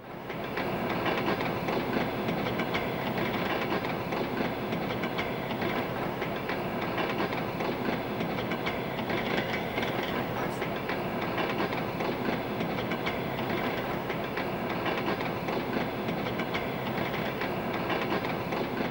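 A passenger train running along the track, a steady noise that swells up within the first second and holds even.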